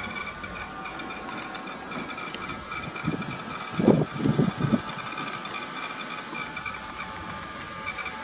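Garden-railway model tram's small electric motor and gears running with a steady, pulsing whine as it travels along the track. A brief cluster of louder low sounds comes about four seconds in.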